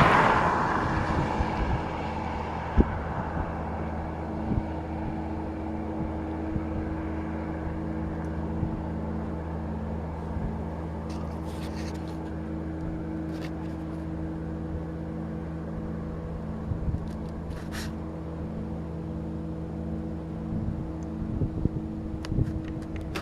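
Steady low droning hum made of several held tones, one of them pulsing at a steady beat. The uploader attributes it to a large industrial machine at an aluminium smelter. A loud rushing sound fades away in the first second or two.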